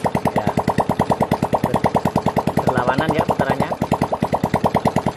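Honda C-series single-cylinder four-stroke motorcycle engine idling steadily, its exhaust beats even at about ten to eleven a second.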